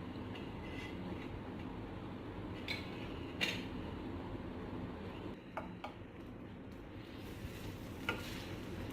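A few faint, sharp clicks of a utensil against a tawa (flat iron griddle) over a low, steady background hiss.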